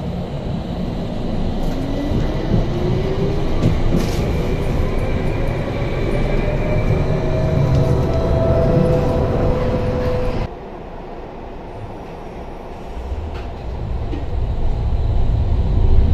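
Tram running on its rails: a steady rumble under a rising electric whine from the traction motors as it gathers speed. About ten seconds in the sound drops suddenly to a quieter rumble, which then builds again with the whine starting to rise once more near the end.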